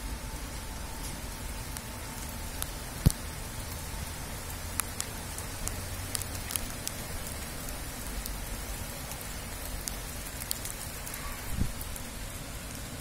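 Thunderstorm downpour: rain falling steadily, with scattered sharp ticks of drops and one louder knock about three seconds in.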